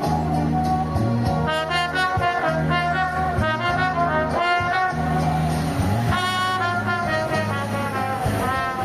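Solo trumpet playing a melody of short and held notes over a low bass line.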